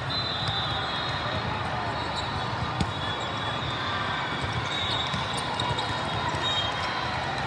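Ball hits and bounces in a large gym during volleyball play, with one sharp smack about three seconds in, over a steady background of crowd chatter.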